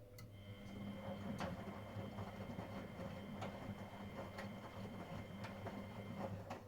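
Miele Professional WS5436 washing machine's drum motor running for about six seconds, turning the drum during the wash, with a steady whine and a light click about once a second; it starts shortly after the beginning and cuts off near the end.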